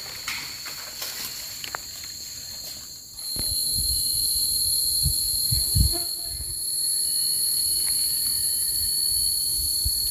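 Steady, high-pitched drone of forest insects at several pitches, growing louder about three seconds in, with a few light clicks before that and some low thumps near the middle.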